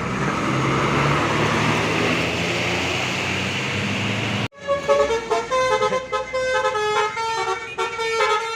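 A tour bus passes close with a loud, steady rush of engine and road noise. After an abrupt cut about halfway through, a multi-tone telolet bus horn plays a quick melody of changing notes.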